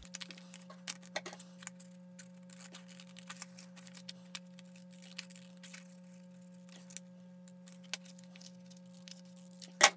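Scissors cutting A4 paper: quiet, irregular snips and clicks, with a sharper snip just before the end, over a faint low steady hum.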